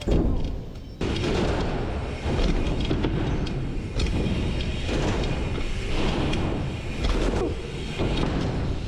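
Dirt-jump bike ridden over jumps with an action camera on board: a rough, steady rumble of tyres on packed dirt with a series of heavy thumps, about one every second or so, from the bike hitting jump faces and landings.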